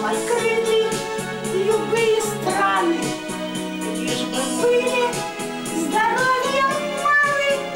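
Music: a woman singing a melody that bends in pitch over a backing track of steady held chords.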